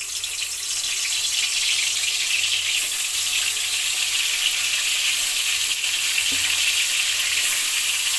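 Eggplant slices sizzling as they shallow-fry in hot oil in a karahi. The sizzle grows fuller over the first few seconds as more slices are laid in, then holds steady.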